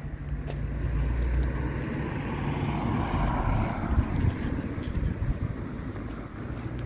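A car driving past close by, its engine and tyre noise swelling over the first few seconds and fading as it moves away, over a steady low rumble.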